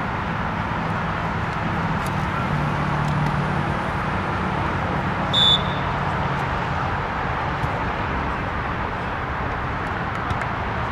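Steady outdoor background noise with a low hum, broken once about five seconds in by a short, sharp blast of a referee's whistle.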